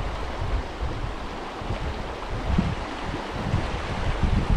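Stream water rushing steadily, with irregular gusts of wind buffeting the microphone.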